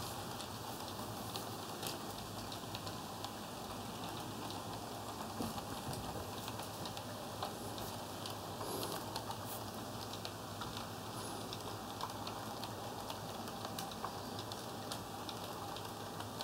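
HO-scale model train coaches rolling along the track, with a steady running noise and a low hum broken by scattered light clicks from the wheels.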